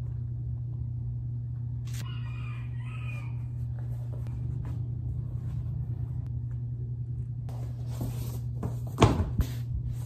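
A steady low hum with a short distant animal call about two seconds in, then a rubber yoga mat being swung out and dropped onto the floor, giving a few thumps and rustles near the end.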